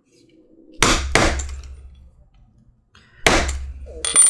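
Blows on a rivet setter on a stone slab, setting a leather rivet: two quick strikes about a second in, another a couple of seconds later, each with a deep thud from the slab, then a short high metallic ring near the end.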